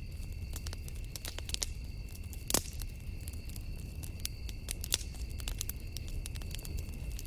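Campfire burning, crackling with irregular sharp snaps and pops over a low rumble, with one louder pop about two and a half seconds in.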